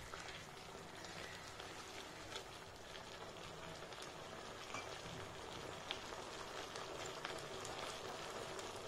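Thick chilli-garlic sauce simmering in a non-stick kadai: a soft, steady sizzle with scattered faint pops and crackles from the bubbling sauce.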